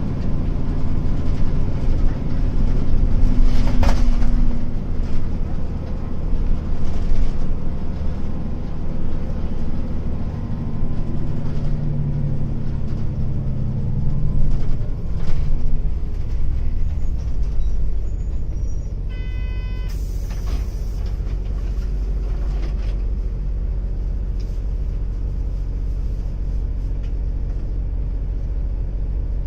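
Diesel engine of a Hino Blue Ribbon long-body bus heard from inside, its pitch falling as the bus slows to a stop and then idling steadily; the uploader notes its engine note differs slightly from a standard Blue Ribbon's. About two-thirds in an electronic chime sounds, followed at once by a short hiss of released air.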